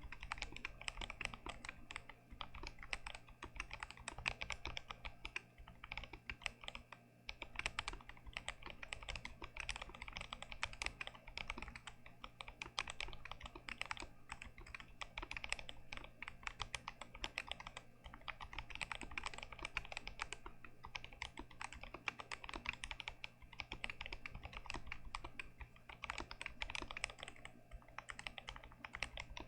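Continuous fast typing on a stock, unmodded Glorious GMMK Pro aluminium mechanical keyboard with Gazzew Boba U4T tactile switches: a dense, unbroken stream of key presses and returns. A faint steady low hum lies underneath.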